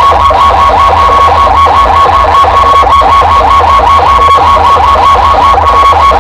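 Large outdoor sound-system loudspeaker stacks, with bass cabinets and horn units, playing at full volume. A rapid string of falling electronic chirps, several a second, runs over a steady high tone, with deep bass throbbing underneath.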